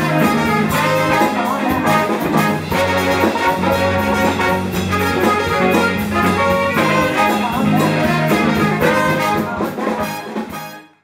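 Live band playing soul-funk with a horn section of trumpet and trombone over electric bass and drums, fading out quickly near the end.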